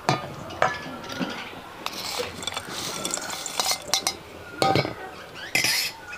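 Utensil clinks and knocks against a bowl, with scraping and stirring in between, as the mung bean and coconut filling for modakam is mixed; several sharp clinks stand out, at the start and twice near the end.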